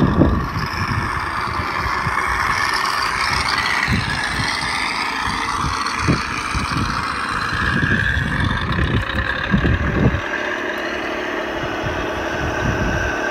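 Radio-controlled scale dump truck driving, with a steady engine-like running sound. Irregular low thumps and rumbling stop about ten seconds in.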